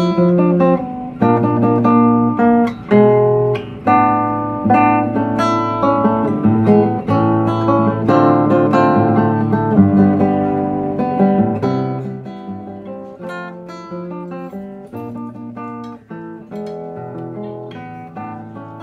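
Background music: plucked acoustic guitar, turning much quieter about twelve seconds in.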